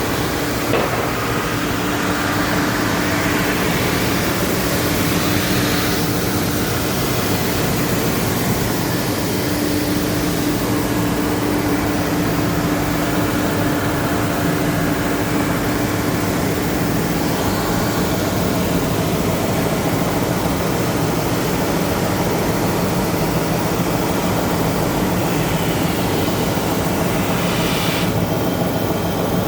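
CNC router spindle running and cutting wood for V-carve engraving: a steady, even machine noise, with a constant hum through the first half that fades out a little after the middle.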